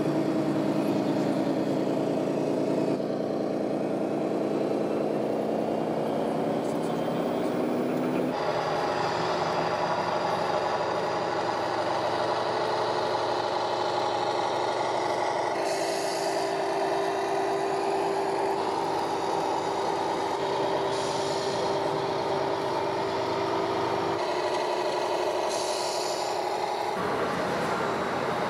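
Radio-controlled model truck running: a steady motor hum and whine that rises in pitch over the first several seconds, then changes character abruptly a few times. Short hisses come around the middle and near the end.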